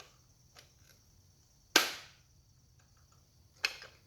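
Dewalt DCS391 20V cordless circular saw briefly triggered twice, about two seconds apart, to check whether the battery has charge. Each pull is a sharp burst that dies away within half a second, and the battery proves to have a little charge.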